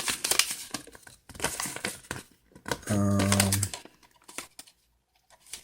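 Paper and cardboard packaging rustling and crinkling as an instruction manual is handled out of a toy box, in irregular bursts. About three seconds in comes a short, steady low hum lasting under a second.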